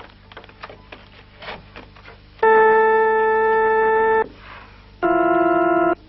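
Pipe organ sounding two long single notes, the first held for nearly two seconds, the second higher and shorter, after a couple of seconds of light clicking from the keys and action. The air comes from hand-worked bellows.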